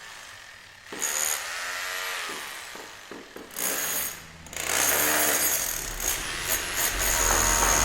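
Construction-site power tools running in short bursts that start and stop suddenly, with a pitched whine that bends up and down; toward the end the noise thickens and a low rumble builds.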